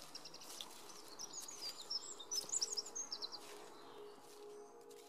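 Small songbirds chirping in quick high bursts, with footsteps rustling through dry fallen leaves.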